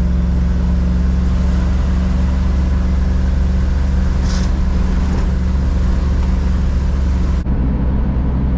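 Steady engine and road noise inside a moving truck's cab while driving, a constant low hum. The sound shifts abruptly about seven and a half seconds in.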